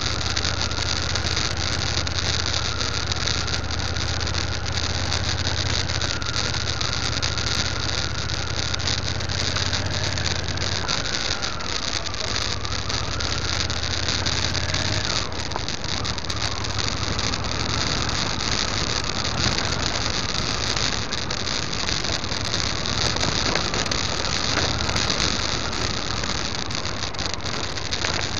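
Motorcycle riding along a loose gravel track: a steady low engine drone with a thin wavering whine above it, over constant road and wind noise and many small clicks and rattles from the rough surface.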